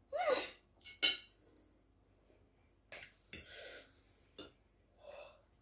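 Quiet eating sounds: metal forks clicking against plates a few times, with breaths and short mouth and voice noises from people eating spicy noodles.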